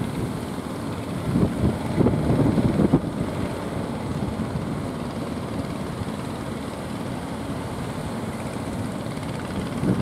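Strong wind buffeting the microphone, gusting hard for a couple of seconds early on, over a steady rush of wind and surf.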